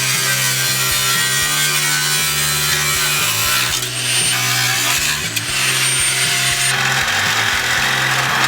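A power saw cutting steadily through rusted old exhaust pipe to free the worn-out original muffler.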